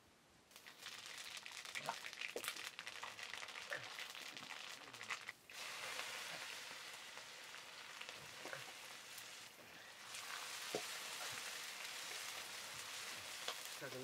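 Food frying in hot oil in a metal wok over a wood fire: a steady sizzle with many small crackles as crumbled noodles and vegetables cook. The sizzle drops out briefly twice.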